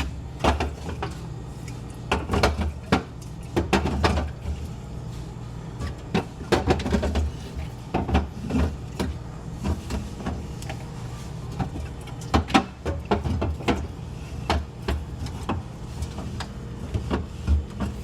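Irregular knocks and clatter of containers and shelves being moved around inside a refrigerator, over a steady low hum.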